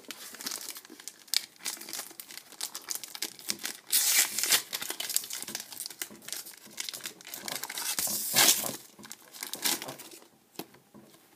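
Foil wrapper of a Pokémon trading card booster pack crinkling as it is handled and torn open, with louder bursts about four seconds in and again about eight seconds in, dying down near the end.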